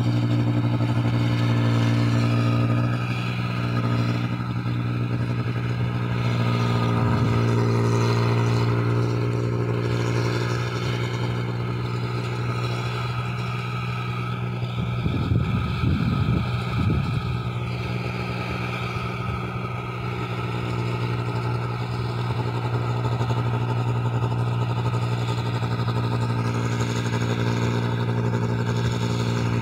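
Rice combine harvester's engine running steadily at working speed, a constant low drone with a brief wavering about halfway through.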